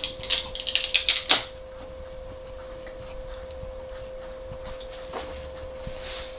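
A quick run of sharp clicks over about the first second and a half, then only a steady high-pitched hum.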